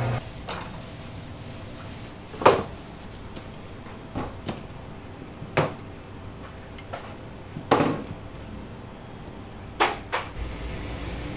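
Bakery equipment being handled and set down: about eight separate knocks and clatters, the loudest about two and a half and eight seconds in, some ringing briefly.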